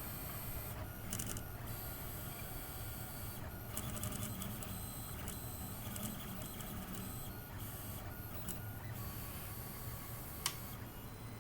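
Home-built Prusa i3-style 3D printer printing in PLA: its stepper motors whine and buzz, changing pitch and stopping and starting every second or so as the print head changes moves, over a steady low hum. A single sharp click comes about ten and a half seconds in.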